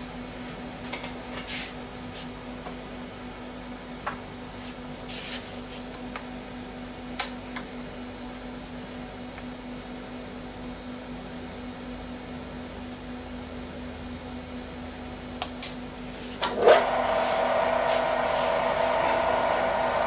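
Steady low hum with a few light clicks and knocks as graphite stock is set and clamped in the mill vise; near the end the spindle motor of the CNC-converted Central Machinery mill spins up with a rising whine and settles into a loud steady running whine, ready to engrave the vents.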